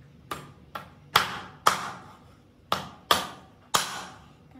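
Kitchen knife chopping through raw meat onto a round wooden chopping board: seven sharp knocks at an uneven pace, each ringing briefly.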